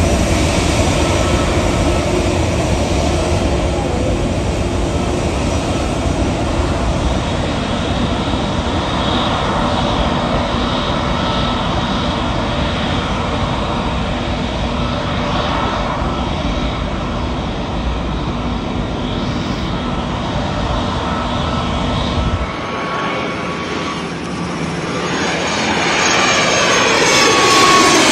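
Airliner engines running steadily with a deep rumble. About 22 seconds in the sound changes abruptly, and a second aircraft's engine noise grows louder with sweeping tones as it nears.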